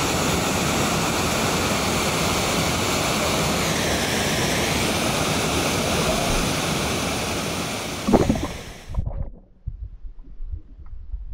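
Steady rush of flowing river water. About eight seconds in comes a splash as the camera goes under the surface, then the sound turns muffled, with dull low knocks underwater.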